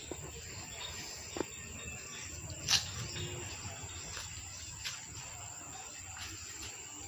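Quiet background ambience: a low steady hum with a few scattered soft clicks, the loudest about three seconds in.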